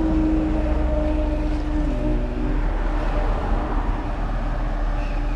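A vehicle engine running steadily: a constant low rumble with a steady hum, which fades near the end.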